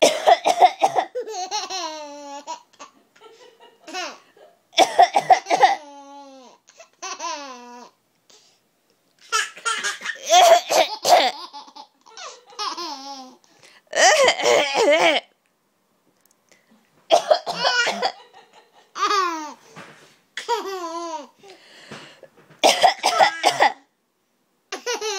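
Coughing and laughter in repeated fits, about nine of them with short pauses between. Each fit starts with a harsh burst and trails off in high-pitched laughs that fall in pitch.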